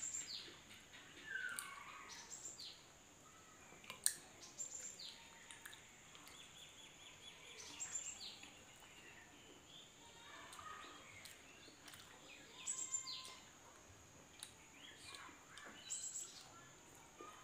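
Small birds chirping, with short falling chirps every second or two, over soft clicks and smacks of people chewing dumplings.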